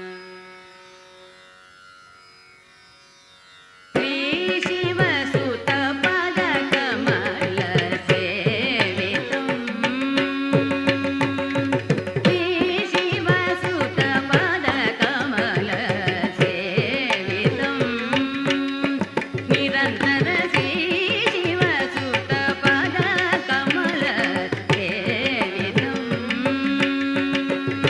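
Indian film-song music in a Carnatic classical style. A held tone fades away, then about four seconds in the full orchestra comes in suddenly with dense melodic lines over steady drum strokes.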